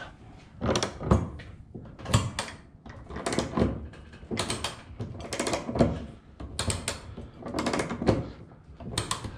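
Lever chain hoist (come-along) being worked by hand under load, its ratchet clicking and its chain clunking in short strokes, a pair of clicks about once a second, as it lifts the bow of a small wooden boat.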